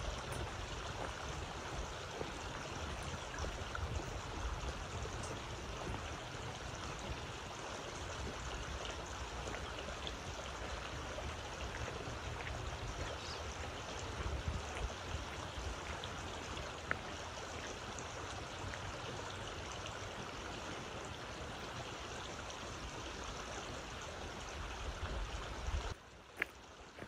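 Steady rush of a shallow mountain creek flowing. It cuts off abruptly about a second before the end.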